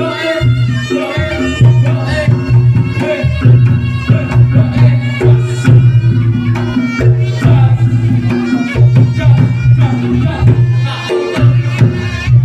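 Live Reog Ponorogo gamelan accompaniment for the dance, with hand drums and a pulsing low bass beat under a wavering pitched melody.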